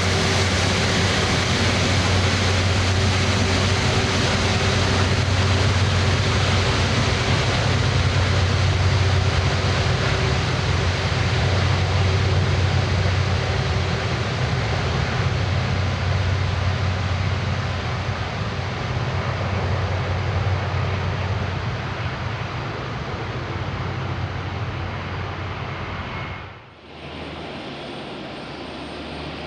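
Airbus A330 jet engines: a loud, steady rumble and roar that slowly fades over the second half, then breaks off suddenly near the end, giving way to quieter jet noise.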